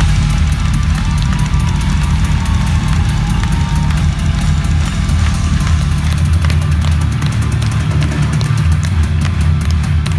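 Live band playing loud music, with a driving drum kit beat over a heavy bass.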